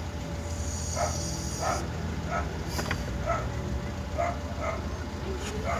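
A dog barking repeatedly, about one bark every half second to second, over a steady low hum.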